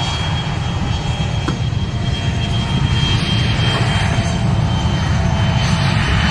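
Aircraft engines running: a steady low rumble with a thin high whine, slowly growing louder.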